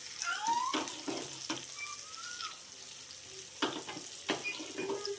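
Cooking in a pan: a steady hiss of frying with several sharp knocks of a utensil against the pan, and a few short, high chirping tones.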